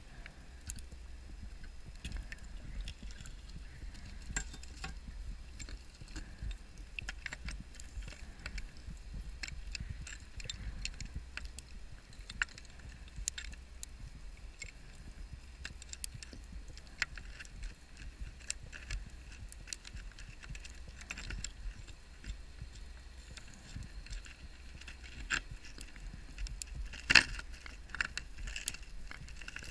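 Underwater sound picked up through a diving camera's housing: many scattered sharp clicks and crackles over a steady low rumble, with a louder run of clicks near the end.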